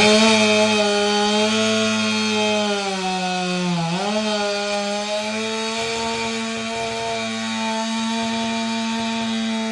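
Chainsaw revved to full throttle and held there while cutting the palm, with a short dip in pitch about four seconds in before it comes back up and runs steady.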